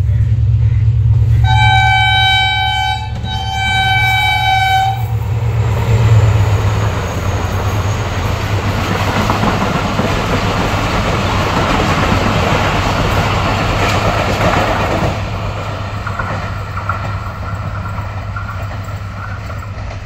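Pakistan Railways HGMU-30 diesel-electric locomotive at the head of an express passing through a station at speed: its engine drones as it approaches, it sounds two long horn blasts, then the coaches rush past with wheel clatter, fading after about fifteen seconds.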